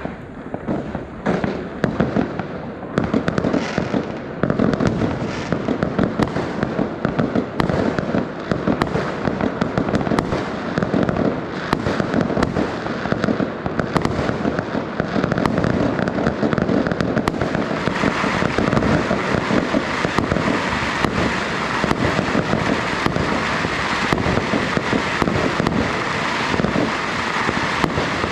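Fireworks and firecrackers going off without pause: a dense stream of bangs and crackles that grows thicker and brighter about two-thirds of the way through.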